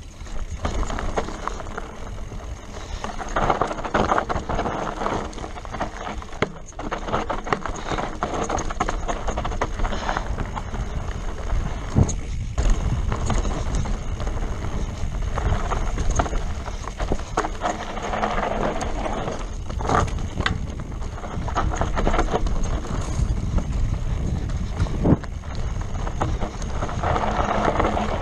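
Mountain bike riding fast down a dirt and rock trail: tyres rolling over dirt and stones and the bike rattling and knocking over bumps, many sharp knocks throughout, over a steady rush of wind on the microphone.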